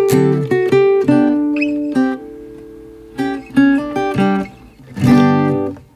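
Background music on guitar: plucked notes and strums, ending on a final strummed chord about five seconds in that dies away.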